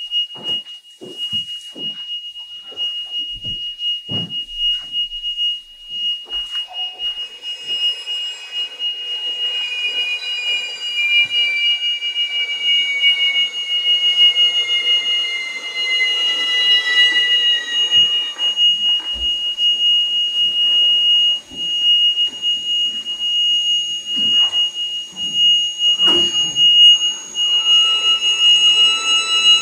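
Contemporary music for violin and live electronics: a steady, piercing high pure tone is held throughout. Short detached violin sounds come in the first few seconds, then a dense layer of sustained tones enters about seven seconds in, one of them sliding slowly downward, and more high tones stack up near the end.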